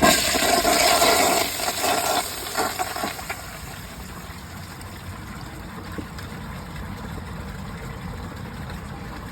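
2023 Mansfield ProFit toilet flushing from an overfilled tank with its siphon jet blocked: a sudden rush of water for about three seconds, then quieter steady running water. The bowl does not siphon out, so there is no siphonic gulp at the end.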